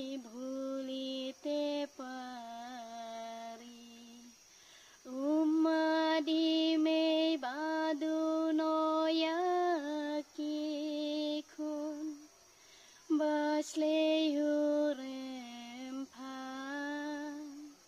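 A woman singing a slow Bengali song unaccompanied, holding long notes in phrases with short breaks between them.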